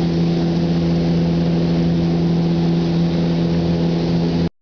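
Steady machine hum with a low, even drone, unchanging, that cuts off suddenly near the end.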